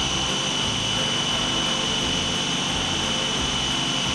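Small electric food processor running steadily with a high whine, blending malunggay (moringa) leaves, garlic, lemon and olive oil into a fine pesto paste.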